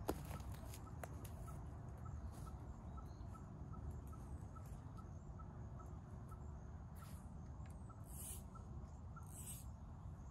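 Quiet pond-side ambience: a small animal repeats a faint, short high pip a little more than twice a second over a low rumble of wind. Near the end come three short swishes, about a second apart, from fly line being false-cast.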